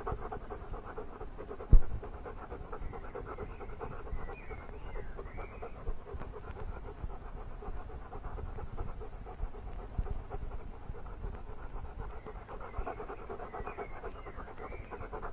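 A German Shepherd Dog panting steadily and rapidly, with a single sharp knock about two seconds in.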